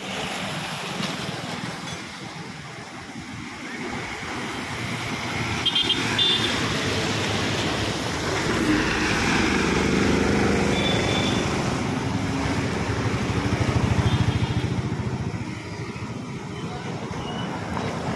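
Road traffic with an MSRTC bus passing close, its engine loudest around the middle, while motorcycles and other vehicles go by.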